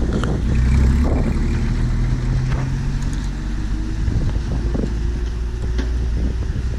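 Car engine running steadily at idle, a low even hum.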